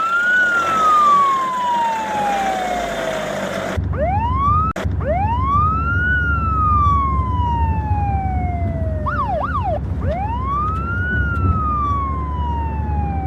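Police siren wailing: each cycle rises quickly and falls slowly, three times, with a brief fast up-and-down yelp just after the middle. A steady low rumble joins underneath about four seconds in.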